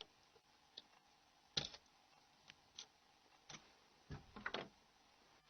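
Faint, scattered clicks and taps of small metal hand tools on a mobile phone's plastic cover parts, as a flat-bladed screwdriver levers the C-cover catch spring loose. About seven clicks, irregularly spaced, with a small cluster near the end.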